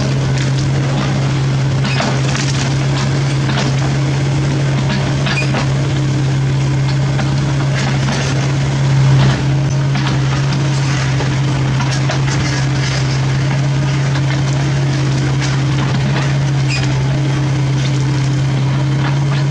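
CAT mini excavator's diesel engine running steadily under load while its bucket tears into a tree stump, with irregular cracking and snapping of roots and wood. The engine note swells briefly about nine seconds in.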